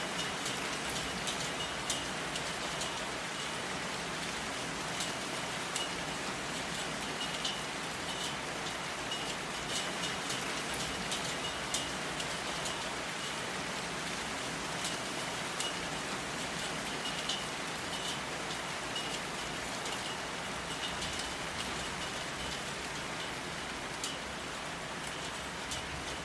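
Steady rain falling, with many individual drops ticking sharply through the constant patter.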